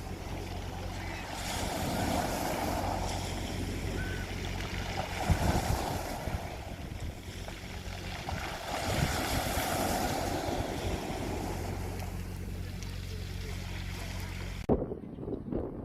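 Waves washing in on a shore, swelling and easing every three or four seconds, over a steady low hum. About a second before the end the sound cuts to a different scene, with a few sharp knocks.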